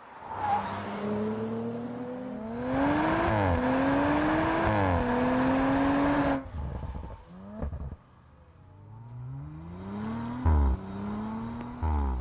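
2018 Audi RS5's twin-turbo V6 accelerating hard through the gears, its note climbing in pitch and dropping at each upshift. The sound falls away suddenly about six seconds in, then builds again with a short low thump at each of two upshifts near the end.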